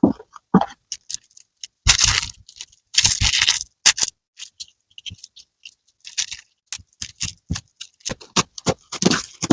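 Slime being squished and stretched by hand, making irregular wet crackles, pops and squelches, with a short pause in the middle.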